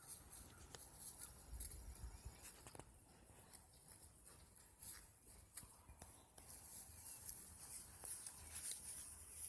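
Goats grazing: faint, irregular crisp clicks and rustles of tall grass being torn off and chewed.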